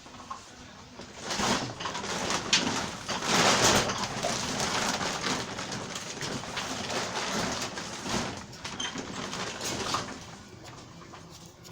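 Wind blowing in gusts and rustling the plants. It rises about a second in, is strongest a little after three seconds, and dies down near the end.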